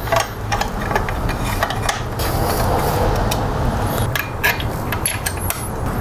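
Metal clinks, clicks and knocks of hand tools and parts as an alternator bracket is fitted to an engine, over a steady low hum.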